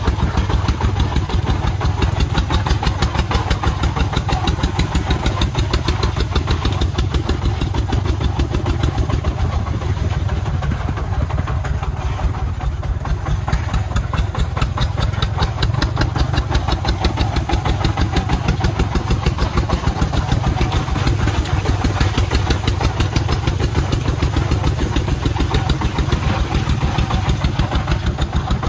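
The single-cylinder 24 hp diesel engine of a công nông three-wheeled farm truck chugging steadily under load, a fast, even train of exhaust pulses, as the truck hauls a full bed of sand.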